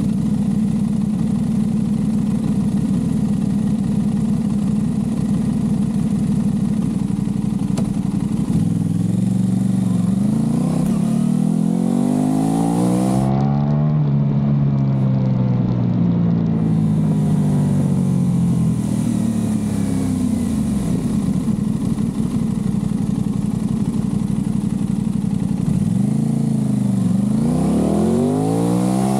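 Aprilia RS660's parallel-twin engine through a Mivv Delta Race aftermarket exhaust, idling steadily, then pulling away about nine seconds in and revving up through several gears, with a dip in pitch at each shift. It eases off with falling pitch in the middle, then accelerates again near the end.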